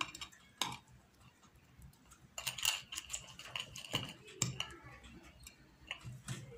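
Metal fork scraping and clicking against a plate as it mashes and stirs a thick paste, in irregular strokes.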